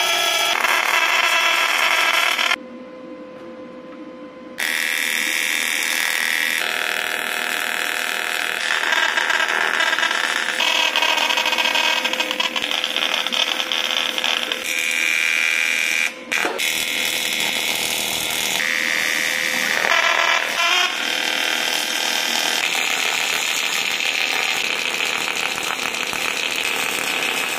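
AC TIG welding arc on aluminium: a steady, high electric buzz from the torch as fittings are welded onto an aluminium radiator. The buzz comes in several stretches, with a quieter gap of about two seconds early on and a brief break around the middle.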